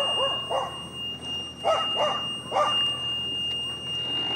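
A dog barking in two short runs of barks, over a steady high-pitched buzzer tone, typical of a golf cart's reverse warning buzzer as the cart is backed off its trailer.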